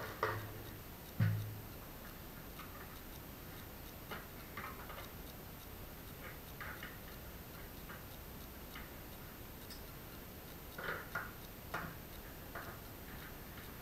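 Quiet, irregular light clicks and taps of tools and parts being handled during a rudder box rebuild, with a short dull knock just over a second in and a few sharper clicks near the end.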